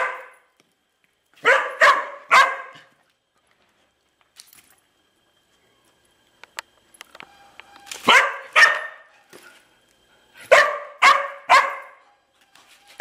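A dog barking in short runs: three barks, then after a long pause two, then three more.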